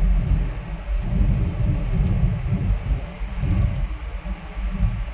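Low, uneven rumble of a car on the move.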